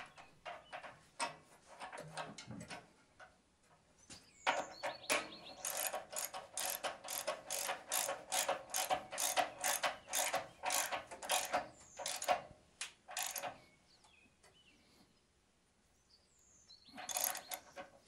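Ratchet wrench clicking as it spins a new sacrificial anode rod down into its threaded port on top of a water heater tank. A few scattered clicks, then a steady run of about three clicks a second for some nine seconds, a pause, and a short burst of clicks near the end.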